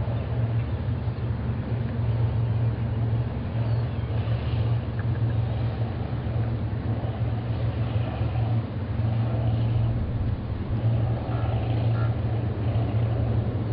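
Steady low rumble of a cruise ship under way, heard from the open deck, with a few faint short high tones about eleven seconds in.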